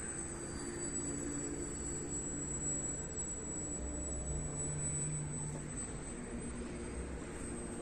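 Electric motor and propeller of a 3D-printed RC model plane in flight, a steady distant drone with a thin high whine over it.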